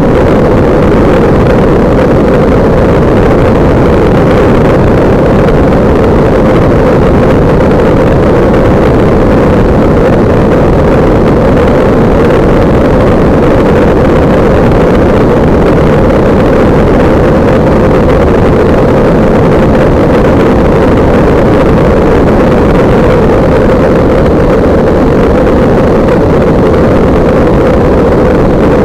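Kolb Mark III ultralight's engine running steadily in cruise flight, mixed with heavy wind rush over the microphone.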